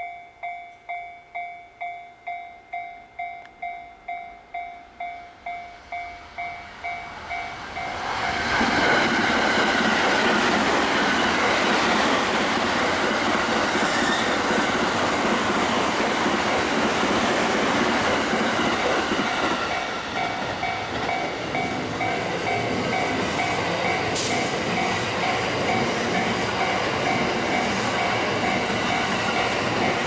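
A Japanese level-crossing warning bell rings in quick two-tone dings, about two a second. About eight seconds in, a train arrives and runs past the crossing at speed, a loud steady rail rumble that drowns the bell. The bell comes through faintly again under the train noise later on.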